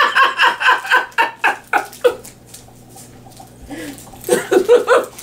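A person's voice in quick rhythmic pulses for about two seconds, then a shorter run of pulses near the end.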